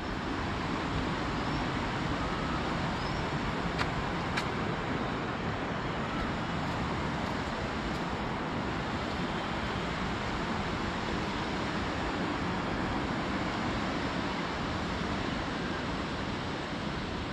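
Fast-flowing Kali river rushing: a steady, even wash of water noise, with two faint clicks about four seconds in.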